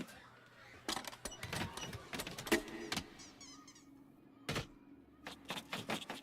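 Film sound effects: a quick, irregular series of knocks and clicks, with brief high chirps around the middle and a steady low hum underneath in the second half.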